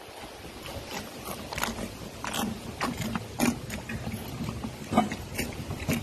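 Calves drinking milk from plastic buckets, with irregular wet slurps and gulps. The loudest of them comes about five seconds in.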